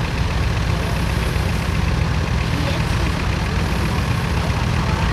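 Vintage tractor engine running steadily with an even, low hum.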